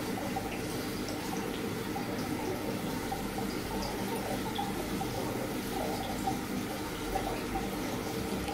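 Water gurgling and trickling in a running reef aquarium, over a steady low hum from its circulation pumps.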